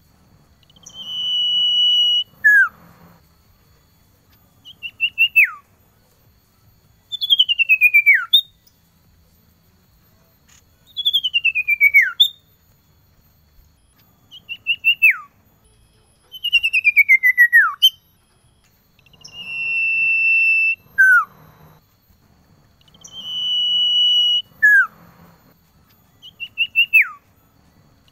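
Male common iora singing. Its phrases come every few seconds: long, level whistles that end in a short falling note, alternating with runs of short notes that each slide steeply down in pitch.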